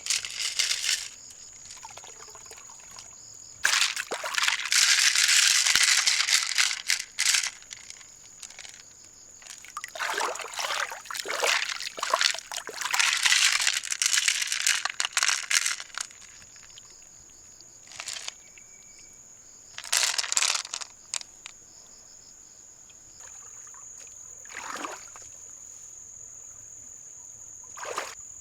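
Water splashing and pouring in irregular bursts, the longest lasting several seconds, over a steady high insect drone.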